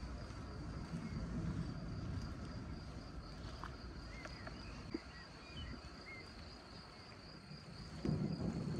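A steady, high, pulsing insect-like trill, with a few faint bird chirps around the middle, over a low outdoor rumble that swells near the end.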